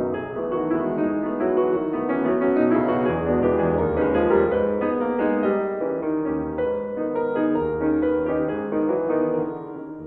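Background music: an instrumental led by piano over held low bass notes, getting softer near the end.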